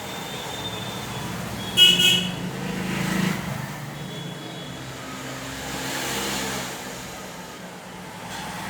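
Road traffic running past, with a short vehicle horn toot about two seconds in.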